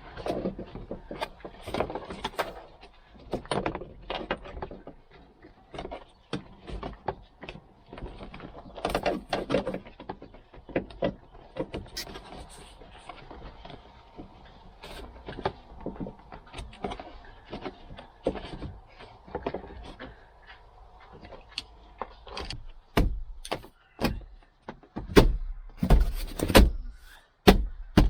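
Irregular clicks, knocks and rattles of a seat belt and interior plastic trim being handled and fitted inside a car, with several louder thumps near the end.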